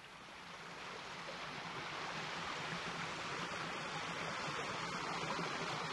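Stream water rushing over rocks, a steady rushing that fades in over the first two seconds or so and then holds.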